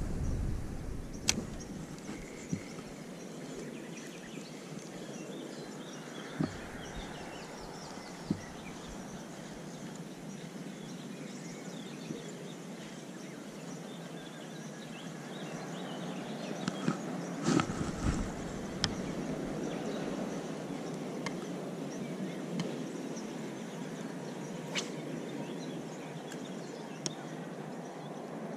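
Steady outdoor background noise with a few scattered light clicks and knocks from the fishing rod and casting reel being handled during a retrieve, and a short cluster of handling knocks a little past the middle.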